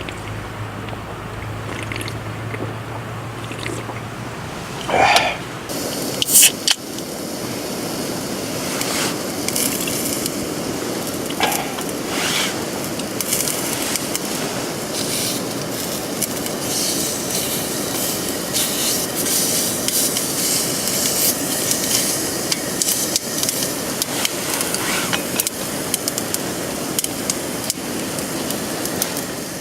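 Steady rushing, splashing water noise. A low hum runs under it for the first few seconds, and a few short chirps come through.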